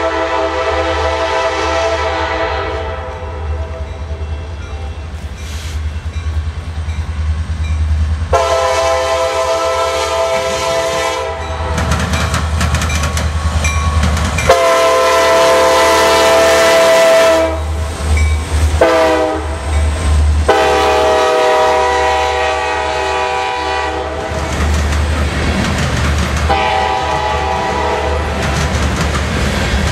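CSX freight train's diesel locomotive horn sounding repeated chord blasts as the train approaches: a long, a long, a short and a long, the pattern blown for a grade crossing, then another long blast near the end. Under the horn are a low diesel engine rumble and the clickety-clack of the cars passing over the rail joints.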